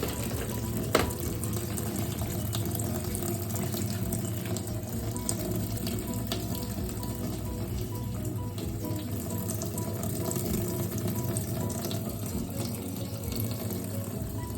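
Water running steadily into an Onida fully automatic washing machine as it fills, over a low steady hum. A single sharp click about a second in.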